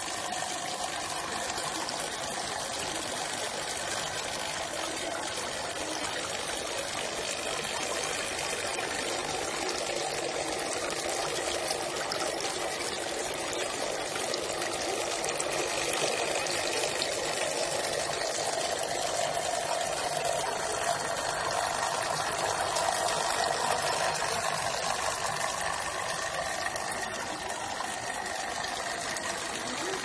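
Water pouring and splashing steadily down a small homemade tabletop waterfall fountain.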